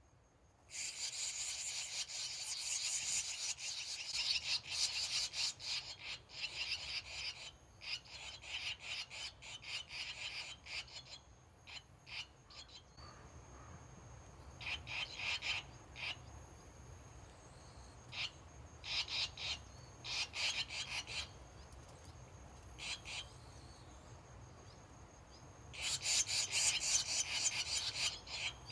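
Barn swallow nestlings calling from their mud nest in rapid trains of short, high notes. The calls come in several bouts, loudest near the start and again near the end.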